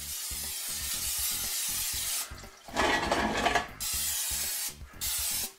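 Aerosol canola-oil cooking spray hissing into an air-fryer basket in several bursts with short pauses between them, louder and fuller for about a second near the middle.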